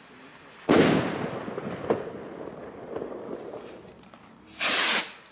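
An Argento carbon firework rocket bursts overhead with a sudden loud bang about a second in, followed by a long rolling echo with a few crackles. Near the end a short, loud whoosh: the next rocket launching.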